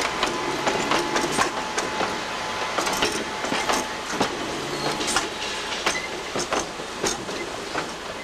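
Articulated tram rolling slowly over rail joints and points, its wheels giving irregular clicks and clanks over a steady running rumble.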